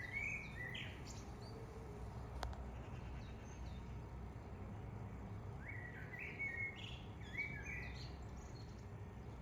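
Song thrush singing: short clusters of sharp, repeated notes near the start and again from about six seconds in, over a steady low background rumble.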